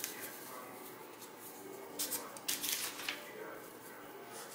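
Sheets of paper being handled on a cork board: a few soft rustles and taps about two to three seconds in, over a quiet room.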